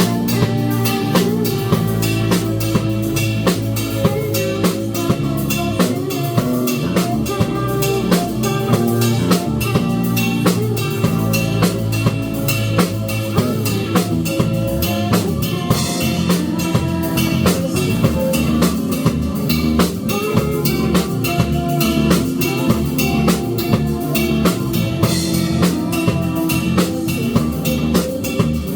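A live band plays an instrumental passage, the drum kit's kick and snare hitting in a steady beat over sustained bass and other pitched instruments.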